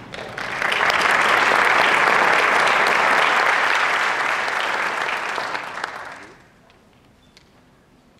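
Concert audience applauding, building within the first second and dying away after about six seconds, followed by a low hush with a few small clicks.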